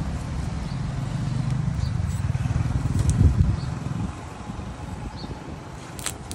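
A motor vehicle's engine passing close by, a low rumble that swells to its loudest about three seconds in and fades away by four seconds. A couple of sharp clicks come near the end.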